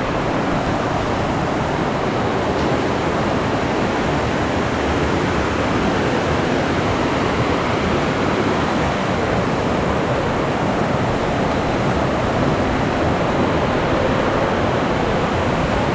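Mandakini river's fast mountain water rushing, a steady, unbroken noise.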